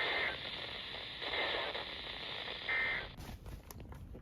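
NOAA Weather Radio broadcast hiss carrying three short bursts of EAS/SAME data tones about a second and a half apart: the end-of-message code that closes an alert. The static cuts off just after the third burst, and a few faint clicks follow.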